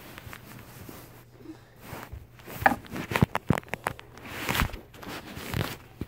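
Handling noise from plush toys being moved right up against the microphone: irregular knocks and clicks, busiest from about two and a half to four seconds in, with a brief rustle after.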